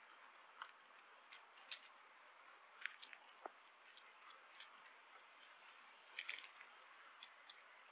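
Near silence: a low steady hiss with scattered faint clicks and ticks at irregular intervals, a small cluster of them about six seconds in.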